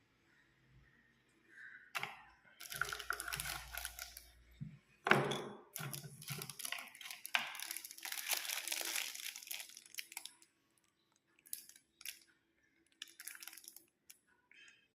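Packaging being handled during an unboxing: crinkling and rustling of wrapping over several seconds, then a few short clicks near the end.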